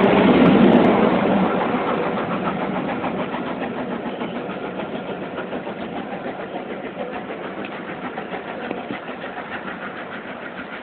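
Coaches of a steam-hauled passenger train rolling past close by with a fast rhythmic clatter, loudest in the first second or so, then fading steadily as the train, led by the Southern Railway King Arthur class locomotive 30777 Sir Lamiel, climbs away up the bank.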